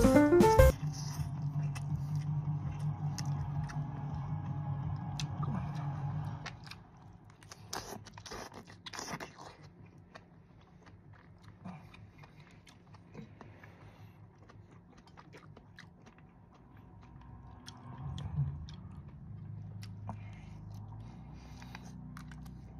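Close-miked eating of noodles and nori-wrapped rice rolls: slurping and chewing, with a cluster of crisp crunches about eight seconds in. Background music cuts off within the first second.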